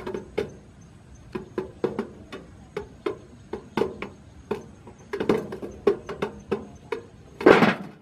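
Quick, irregular light taps of a quail pecking at bait inside a tin box trap, with a louder burst of noise about a second before the end.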